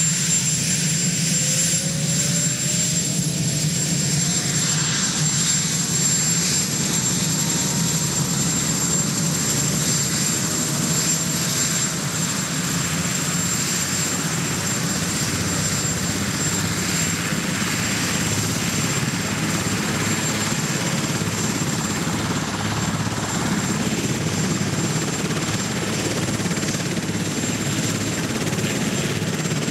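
Marine One, a Sikorsky VH-3D Sea King helicopter, running on the ground with its rotor turning: a steady low rotor and engine rumble with a thin high turbine whine over it.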